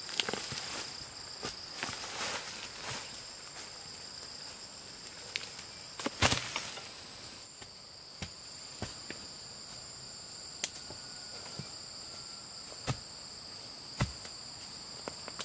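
Steady high-pitched insect chorus, a continuous shrill drone at two pitches, with scattered sharp clicks and knocks over it; the loudest knock comes about six seconds in.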